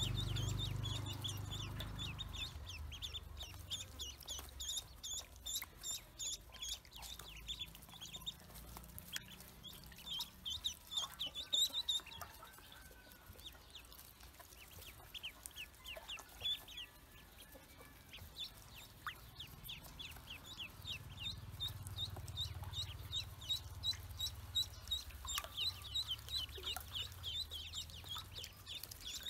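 A group of Pekin ducklings peeping: many short, high-pitched calls overlapping several times a second, thinning out for a while in the middle.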